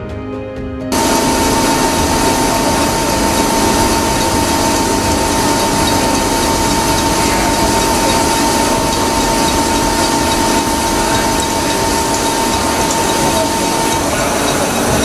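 A CNC lathe bores stainless steel with an anti-vibration boring bar, making a loud, steady cutting noise that starts about a second in. A steady whine sits in the noise and stops near the end while the cutting noise goes on. A last moment of music comes before the cutting starts.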